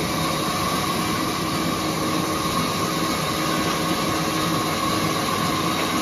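Large sawmill band saw running steadily, its blade cutting lengthwise through a mango log fed on a wheeled carriage. The noise is even and unbroken, with a held tone over it.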